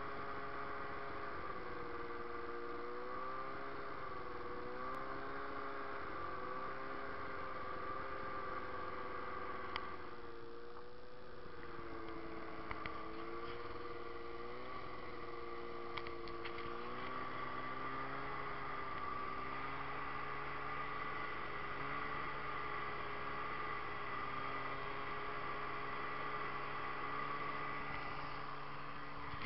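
Snowmobile engine running steadily while riding, its pitch wavering slightly with the throttle and settling lower about 17 seconds in.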